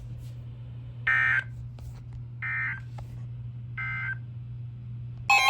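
Emergency Alert System end-of-message data code: three short bursts of warbling digital tones about a second apart, over a steady low hum. A loud electronic alert tone starts just before the end.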